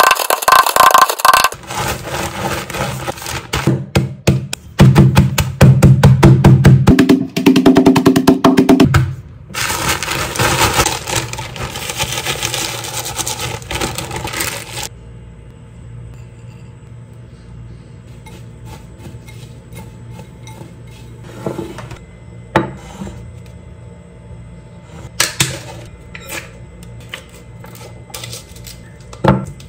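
Chocolate cookies being crushed in a plastic zip-top bag on a tabletop: quick, loud, repeated thumps with crunching for the first several seconds, then a noisy crinkle of the bag as the crumbs are shaken into a glass bowl. After that it goes much quieter, with a few sharp clicks and rustles of packaging being handled.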